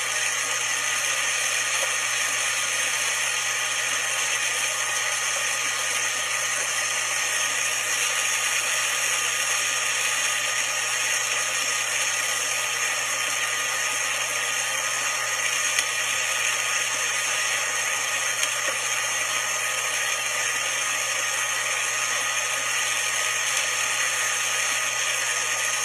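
Magic Bullet blender motor running steadily, blending soaked almonds, dates and water into almond milk.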